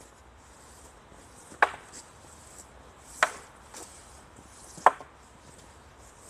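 Wooden staffs clacking together in a paired staff drill: three sharp strikes about a second and a half apart, with a few lighter knocks between them.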